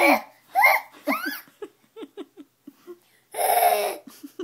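Giggling and squealing voices, with a run of short laughs in the middle and a louder shriek near the end.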